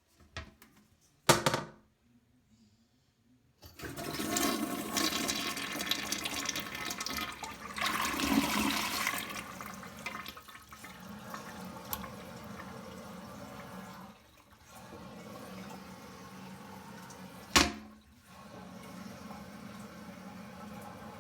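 Toilet flushing: a sharp click, then about two seconds of near quiet before water rushes in, loudest around 8 to 9 seconds in, and settles to a steadier run of water. Another sharp click sounds near the end.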